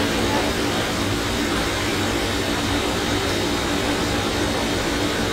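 Steady background noise: an even hiss with a low hum running under it, with no speech.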